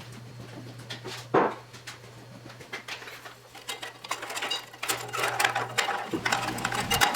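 Hand work on a Dodge 47RE automatic transmission: metal parts and tools clicking and clinking against the case. There is one louder knock about a second and a half in, and the clicking grows busier in the last few seconds, over a steady low hum.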